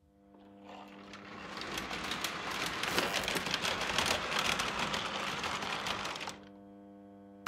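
Lionel postwar log loader's electric motor driving its chain conveyor: a dense clattering rattle that builds over the first two seconds and cuts off about six seconds in, leaving a steady electrical hum.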